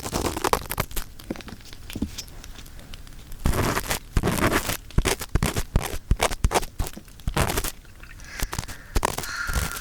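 Ear-cleaning ASMR: an earpick scratching and scraping inside the ear of a 3Dio binaural microphone, in uneven bursts of close crackly scrapes and clicks, heavier about halfway through.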